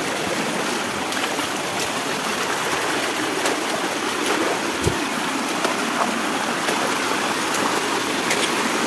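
Small forest stream cascading over rocks: a steady rush of running water.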